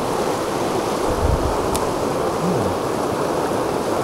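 Fast mountain creek rushing over rocks in whitewater rapids: a steady, loud rush of water.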